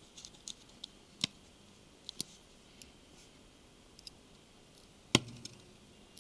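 Scattered small clicks and taps of a precision Phillips screwdriver and tiny screws against a phone's plastic rear housing as the screws are driven in, with the loudest click about five seconds in.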